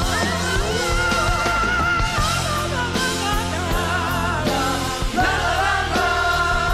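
Live pop-rock band with several singers singing together into microphones, a steady drum beat under them. One long high note is held about a second in.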